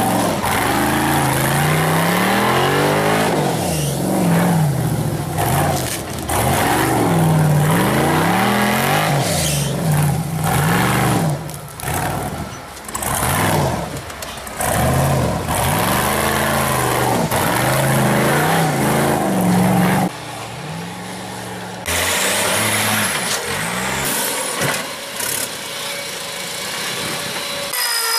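Off-road racing buggy's engine revving hard again and again, its pitch rising and falling every second or so as it works up a steep dirt slope. The revving cuts off suddenly about twenty seconds in, and a quieter engine sound follows.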